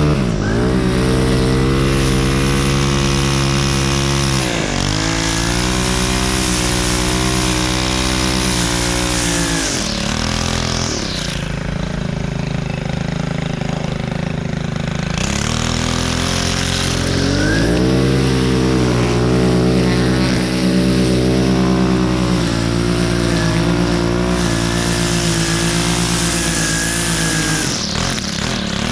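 STIHL FS 131 R string trimmer's 4-MIX engine running at high throttle while cutting grass, its pitch dropping several times as the throttle is eased off and then revving back up, with a longer spell at lower speed in the middle.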